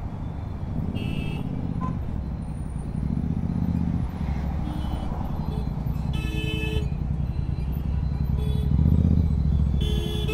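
Riding a motorcycle in city traffic: steady engine and road rumble, with short vehicle horn beeps about a second in, around six seconds in and near the end.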